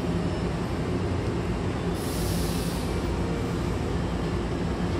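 Electric commuter train standing at a platform with its doors open, its onboard equipment humming steadily, with a short hiss about two seconds in.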